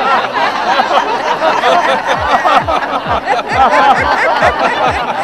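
A crowd of men and women laughing loudly together, many voices overlapping in hearty group laughter.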